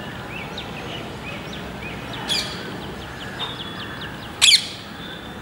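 Jacobin cuckoo calling: a run of short high chirping notes, then a loud call a little over two seconds in and a louder, harsher call about four and a half seconds in, the loudest sound.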